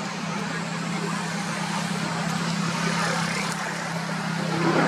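Steady motor hum over a broad rushing noise, like a running vehicle engine and road traffic.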